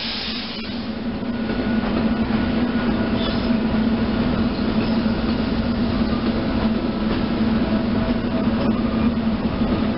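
Three-car SEPTA Silverliner II electric multiple-unit train rolling past close by, with steady wheel-on-rail noise and a continuous hum.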